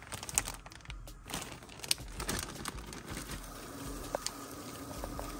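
Light kitchen handling noises: scattered small clicks and crinkling as the wrapped pasteles are handled. A faint steady hum sets in about three seconds in.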